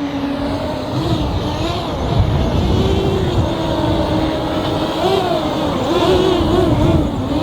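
SwellPro Spry waterproof quadcopter's motors and propellers whining, the pitch rising and falling repeatedly as it is steered, over a low rumble.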